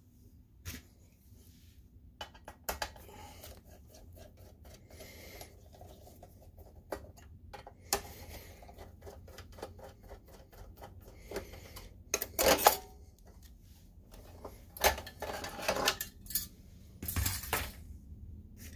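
Clicks and plastic-and-metal clatter as the lamp module is unscrewed and lifted out of a BenQ MH741 projector: scattered small clicks, with the loudest clattering about two-thirds through and again near the end.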